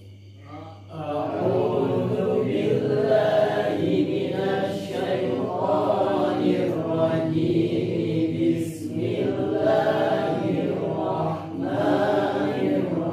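A group of voices chanting Arabic recitation together in unison, with drawn-out phrases and short breaths between them, starting about a second in. This is students practising tajwid by repeating after the teacher.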